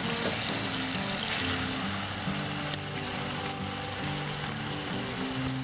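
Ribeye bacon burger patties sizzling steadily in hot fat in a nonstick frying pan, with background music of slow, held notes over it.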